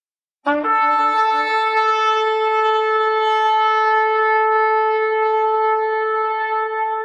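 A single long horn blast that starts suddenly about half a second in, with a brief lower note at the outset, then holds one steady note.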